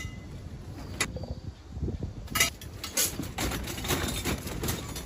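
Stripped lengths of scrap air-conditioner copper pipe being packed into a bag: the bag rustles and the pipes knock and clink against each other. A single sharp knock comes about a second in, and from about two seconds on the rustling and clatter become busy and continuous.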